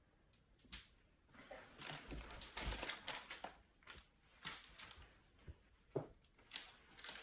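Trading-card pack wrapper and cards being handled: irregular crinkling and rustling that starts a second and a half in, with a few soft thuds near the start of it.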